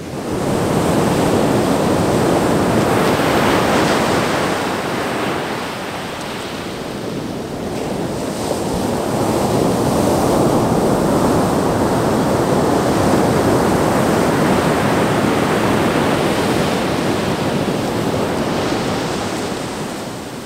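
Ocean surf breaking and washing up the sand, a steady rushing that swells twice and eases between.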